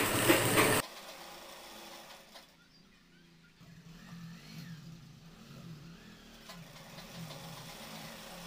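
Sewing machine stitching a folded cloth strip, running fast with a quick even rattle that stops abruptly under a second in. Afterwards only a faint low hum wavers slowly.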